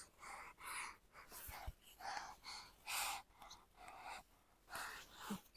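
Hands scraping and scooping dry sand: faint, repeated short swishes, about two a second.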